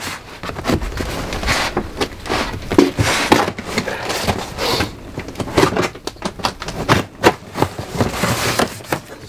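A large cardboard box being torn open by hand: irregular tearing, scraping and rustling of cardboard and packing tape as the seam is ripped and the flaps are pulled back.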